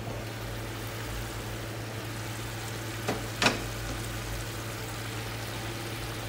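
Diced chicken sizzling and bubbling in a little water in a frying pan, over a steady low hum. Two sharp clacks a little over three seconds in, the second the loudest.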